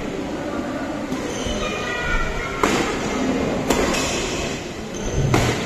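Badminton rally: rackets striking a shuttlecock, three sharp hits in the second half, over the steady noise of a large indoor hall. Short high squeaks in the first half, typical of court shoes on the mat.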